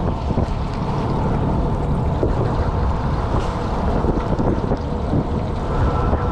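Steady low rumble of a fishing boat at sea, with wind buffeting the microphone.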